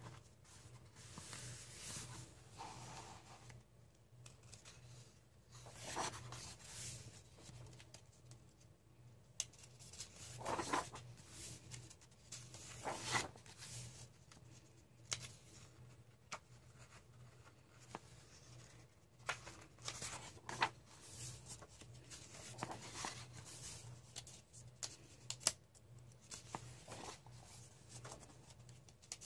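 Pages of a paperback coloring book turned one after another and pressed flat by hand: soft, irregular rustles and swishes of thin printer-grade paper, over a faint steady low hum.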